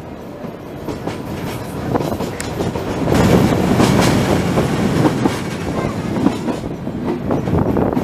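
Narrow-gauge passenger train rolling along the track, heard from an open-sided carriage: a steady rumble with the click of wheels over rail joints, growing louder about three seconds in.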